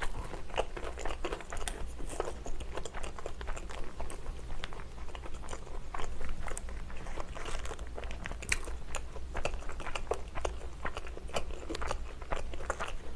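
Close-miked chewing of a Burger King Monster Whopper: a steady run of small wet mouth clicks and soft crunches.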